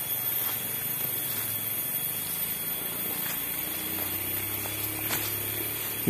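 Steady hiss under a faint, low, held hum from a background Arabic devotional song, in a pause between sung phrases, with a couple of faint ticks.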